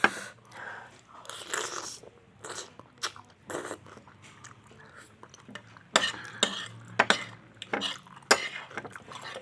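Close-miked chewing of chicken noodles (mie ayam), with wet mouth clicks and short smacking sounds that come thicker in the second half.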